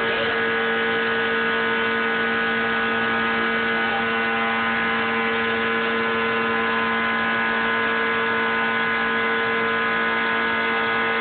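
ShopBot CNC router running steadily, its router motor giving an even, unchanging whine as the bit carves lettering into a plywood sheet.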